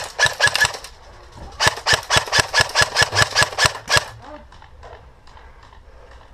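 Airsoft gun firing: a few quick shots, then after a short pause a steady string of about fourteen shots at about six a second that stops abruptly.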